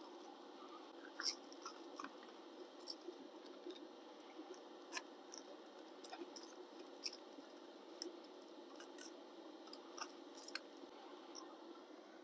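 Aluminium foil crinkling and a fork scraping and tapping as a cooked foil-packet meal is scraped out onto a plastic plate: scattered faint, sharp clicks and crackles.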